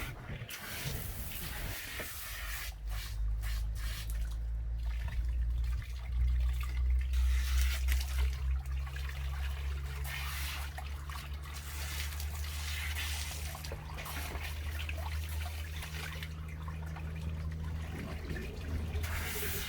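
Water running and trickling, over a steady low hum.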